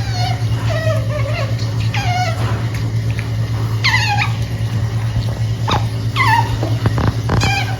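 Pet otter making about six high, squeaky calls while it eats, each falling in pitch, with a few short clicks between them. A steady low hum runs underneath.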